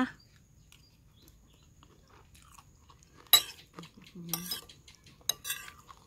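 Metal spoon and fork clinking and scraping against a bowl while noodle salad is scooped up: quiet at first, then a sharp clink about three seconds in, followed by a few short scrapes.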